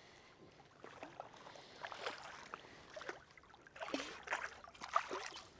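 A small hooked Australian bass splashing at the water's surface as it is landed by hand. The splashes and drips are soft and irregular, busier about four to five seconds in.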